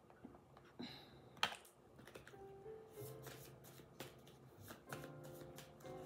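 Deck of oracle cards being shuffled by hand, a quiet run of card flicks and snaps, over faint background music.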